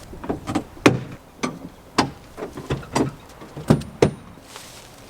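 An irregular series of about a dozen sharp knocks and clunks over roughly four seconds, which stop shortly after the fourth second.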